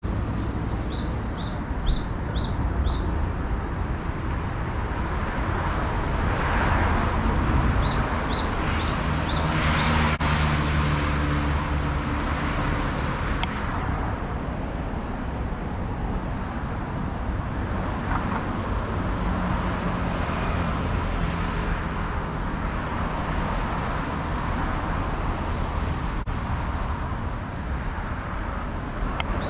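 A wild songbird giving a quick series of about five short, high chirps, twice in the first ten seconds and again near the end, over a steady low background rumble that swells about ten seconds in.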